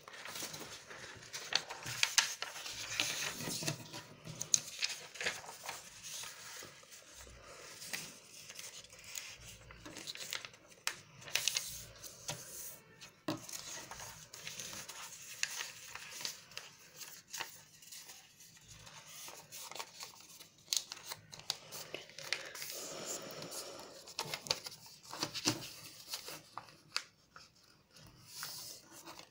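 A sheet of lined notebook paper being handled and folded: irregular rustling, with crisp crackles as creases are pressed flat by hand.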